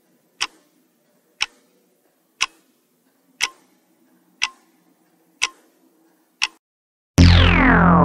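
Quiz countdown timer ticking once a second, seven sharp clock-like ticks over a faint low drone. About seven seconds in, a loud sound effect with a falling sweep and a low buzz marks time running out and the answer being revealed.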